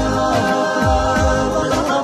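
Background music: held chords over a deep, pulsing bass beat that repeats two to three times a second.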